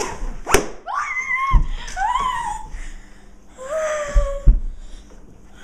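Rubber balloon squealing three times as air is let out through its stretched neck, each squeal rising and then falling in pitch, with a few sharp clicks and knocks in between.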